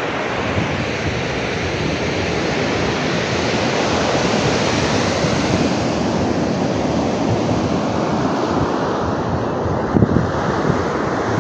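Seawater surging and rushing as one steady, dense noise, with wind buffeting the microphone. There are a couple of brief louder bumps near the end.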